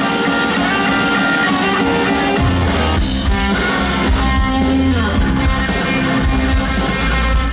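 Live rock band playing: electric guitar and bass guitar over a drum kit.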